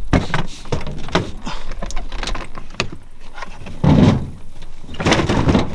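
Knocks and thumps of a big catfish being pushed into a plastic ice chest, with heavier thumps about four and five seconds in.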